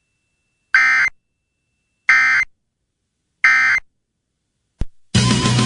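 Emergency Alert System end-of-message data tones: three short, harsh, buzzy bursts about a second and a half apart, marking the close of the broadcast tornado warning. A brief click near the end is followed by music as regular programming resumes.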